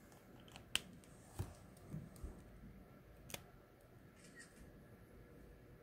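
Faint clicks and taps of markers being handled on the desk: about five short, sharp clicks in the first three and a half seconds, the sharpest about a second in.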